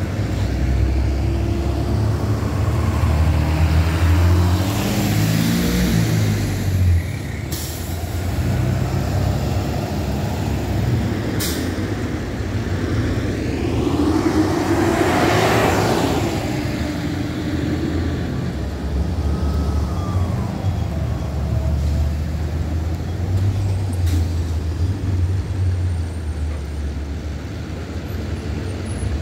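Several school buses pulling out and driving past one after another, their engines rising in pitch as they accelerate in the first few seconds, with one bus passing close about halfway through. Two short air-brake hisses come in between.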